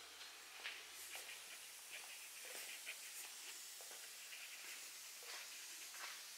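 Faint hiss of a quiet room with scattered light ticks and taps, about a dozen, spread irregularly through the few seconds.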